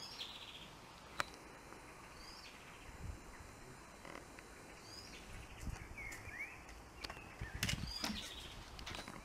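Small birds chirping outdoors, short high calls every second or so. A sharp click comes about a second in, and a few low rumbles on the microphone come and go.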